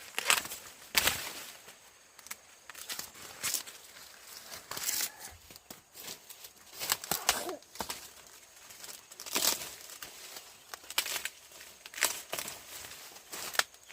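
Dry corn leaves and husks rustling and tearing in irregular bursts, typical of ears being snapped off and handled during the corn harvest.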